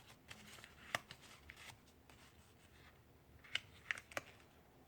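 A sheet of paper being handled and folded by hand: faint rustling with sharp little crinkles and taps as it is creased, three of them close together near the end.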